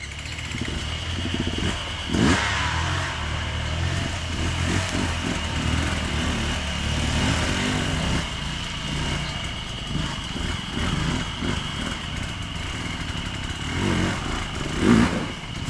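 Off-road dirt bike engine running on uneven throttle, blipping up sharply about two seconds in and again near the end.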